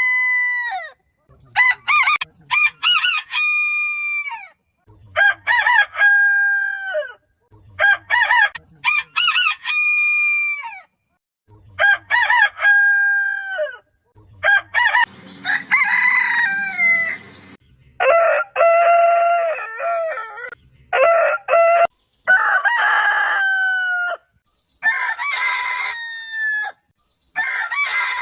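Roosters crowing, about ten crows one after another, each ending in a long held note that drops away at the end. The pitch differs from crow to crow, as from several different birds.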